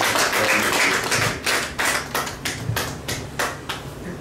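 Small audience clapping, a crowd of separate hand claps several a second.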